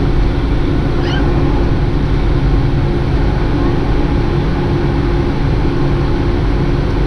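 Steady jet engine and rushing air noise heard inside an airliner cabin while climbing after takeoff: a constant drone with a low, even hum.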